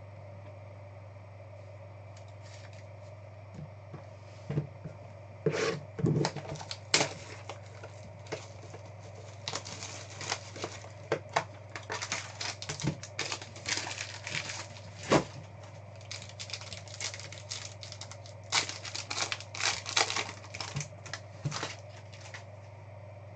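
Trading card box and pack wrapper being torn open and the cards handled: a run of crinkling, tearing and sharp clicks that starts about four seconds in and dies away just before the end. A steady low hum runs underneath.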